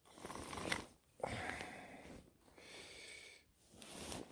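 A person breathing, about four soft breaths roughly a second apart.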